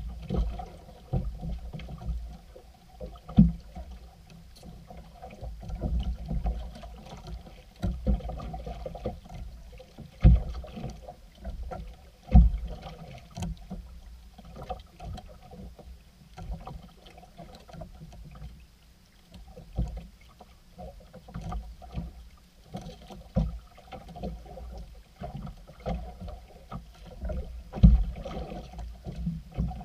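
Water lapping and knocking against the hull of a small outrigger boat, with irregular low thumps and knocks.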